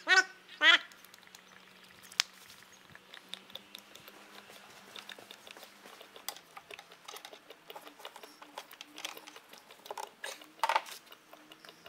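Scattered light clicks and taps of hands handling parts on top of an engine. Two short, loud, pitched calls come right at the start, and there is one more short burst near the end.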